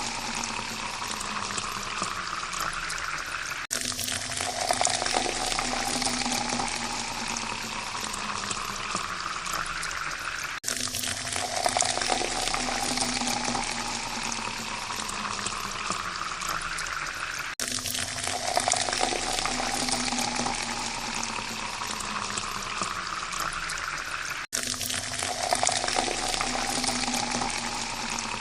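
Water pouring steadily into a glass, the pitch rising as the glass fills. The pour repeats about every seven seconds, each time with a brief break before it starts again low.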